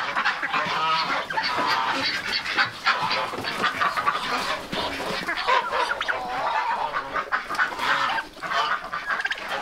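A flock of domestic ducks and geese honking and calling over one another, many short calls overlapping without a break, with chickens among them.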